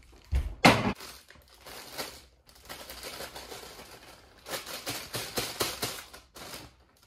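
Kitchen things being handled: one loud bang about half a second in, then scattered clattering and knocking for a couple of seconds near the end.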